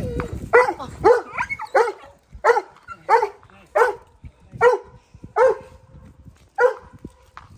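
A dog barking repeatedly, about ten short barks at a fairly even pace of roughly one every two-thirds of a second.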